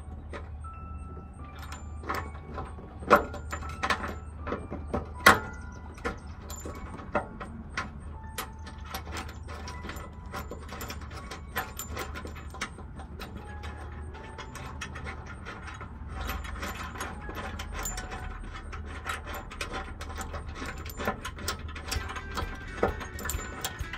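Ratchet wrench clicking in rapid runs as a nut is tightened onto a push-bumper mounting bolt at the truck's frame, with a few louder metal knocks around three to five seconds in, over a steady low hum.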